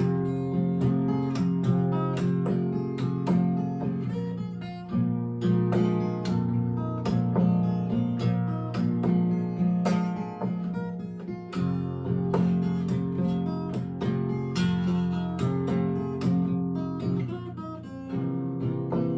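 Acoustic blues guitar playing an instrumental passage: a steady run of plucked notes over ringing bass notes, with no singing.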